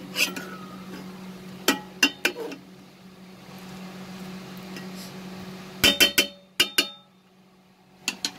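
Metal spatula clinking and knocking against a metal cooking pot while rice is spread in it, with a cluster of ringing clinks about six seconds in. A steady low hum runs underneath and drops away shortly before the end.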